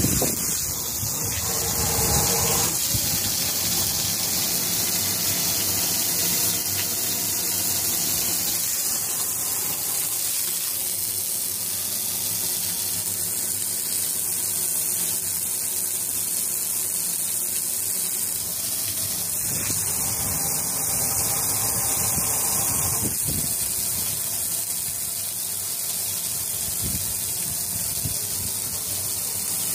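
Water spraying steadily onto a fiberglass boat deck, a continuous rush with splashing.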